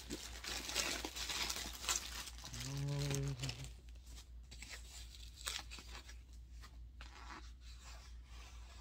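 Clear plastic bag and foam packaging wrap crinkling and rustling as a handbag is pulled out and unwrapped, densest in the first few seconds. A brief low hummed voice comes in about two and a half seconds in, and the rustling goes on more softly and sparsely after it.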